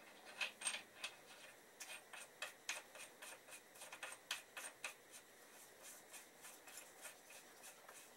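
Faint, irregular small metal clicks and rubbing, two or three a second, as the locking nut and spacer are fitted and turned onto the threads of a Suzuki Hayabusa steering stem by gloved hand.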